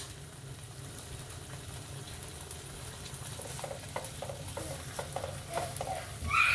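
Slices of ham sizzling in an oiled nonstick frying pan: a steady hiss with crackles and small pops that grow busier from about halfway, as chopsticks shift the slices. A high-pitched voice cuts in loudly near the end.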